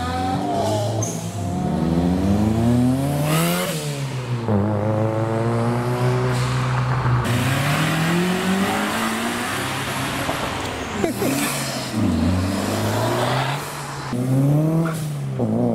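Honda Type R four-cylinder cars accelerating hard past one after another, engines revving high with a drop in pitch at each gear change and a swell of noise as each one goes by. One sharp pop about eleven seconds in.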